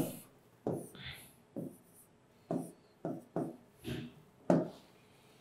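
Marker pen writing on a whiteboard: about eight short scratchy strokes as numbers are crossed out and new digits written.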